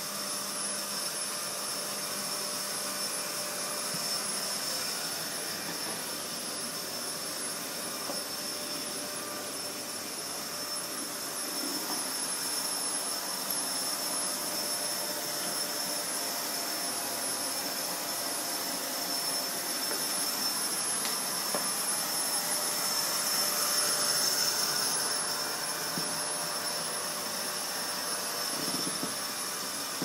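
Vacuum cleaner running steadily, a constant whine with a high-pitched tone, swelling a little louder about two-thirds of the way through.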